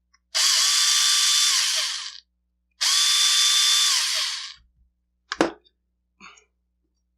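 A small cordless drill-driver running in two bursts of about two seconds each, spinning up to a steady whine and winding down, as it backs out screws on a mortise lock cylinder. A single sharp click follows.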